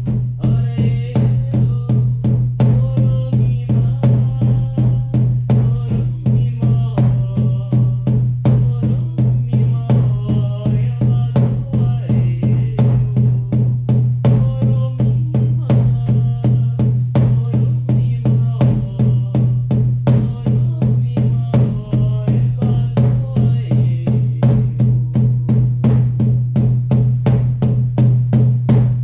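Shamanic frame drums beaten in a steady, even rhythm of about two strokes a second, with a deep ringing boom under the beat. Voices chant a wordless melody over the drumming.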